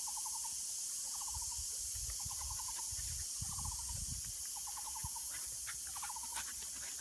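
An animal calling a short, rapid trill, repeated about once a second, six times, over a steady high hiss. A low rumble comes in the middle, and a few soft clicks come near the end.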